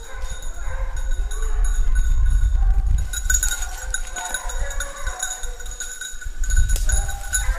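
A running hunting dog's bell jingles in repeated bursts, loudest about three seconds in and again near the end. A low rumble of wind and movement on the microphone runs under it.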